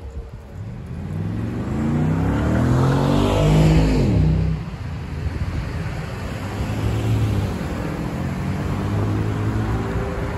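Cars accelerating across the railroad crossing as the traffic moves off. Engine pitch climbs over the first few seconds, and the loudest car passes close about four seconds in, its pitch dropping as it goes by. More cars follow.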